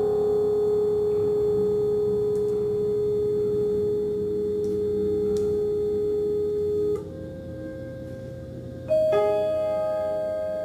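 Contemporary chamber music for clarinet, piano, vibraphone and electronics. A single steady, almost pure note is held for about seven seconds, then gives way to a softer, higher note. About nine seconds in, a vibraphone chord is struck and rings on.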